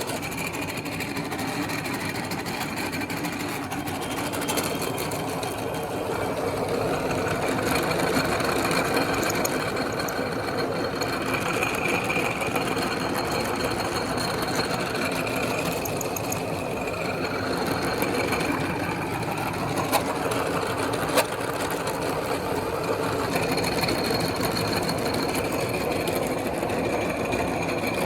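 Electric meat grinder running steadily as it grinds bubble gum, a continuous motor-and-gear drone. Two short clicks stand out near the end.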